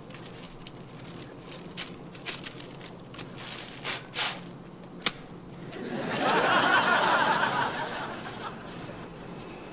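Paper air-sickness bag crinkling and rustling as it is unfolded and handled, with a few short puffs of breath blown into it around four seconds in. About six seconds in, a swell of studio-audience laughter rises and fades away over two to three seconds.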